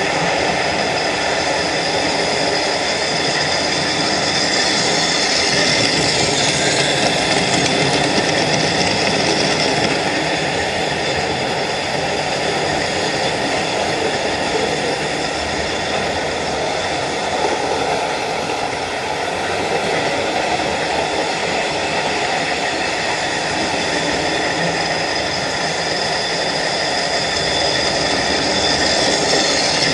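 Several OO gauge model trains running at once, with a steady whirring of small electric motors and wheels rolling on the track.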